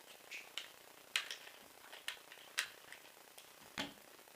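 Scattered sharp clicks and taps, about half a dozen, of small parts being handled as the motor and its wires are taken out of an airsoft M4's pistol grip.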